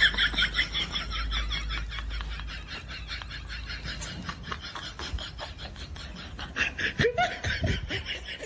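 A person laughing, a long run of rapid high-pitched laughs that stops abruptly near the end.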